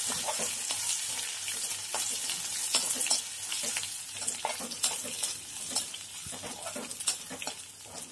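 Tempering of mustard seeds, urad dal, cumin, dried red chillies and crushed garlic sizzling in hot sesame oil in a kadai, with many small crackles and pops, while a spatula stirs and scrapes the pan. The sizzle slowly dies down as the chillies finish browning.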